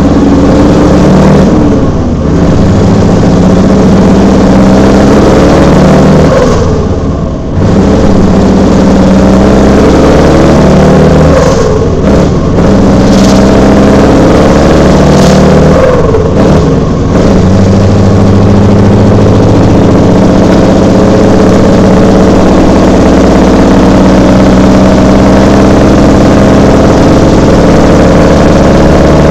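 Scania V8 truck engine running continuously under load. Its pitch climbs and drops back several times, as when a truck goes up through the gears, then rises slowly over the last ten seconds or so.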